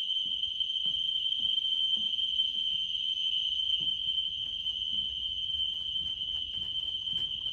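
System Sensor SpectrAlert Classic fire alarm horns sounding a continuous steady tone, a single high pitch held without pulsing, with faint knocks underneath.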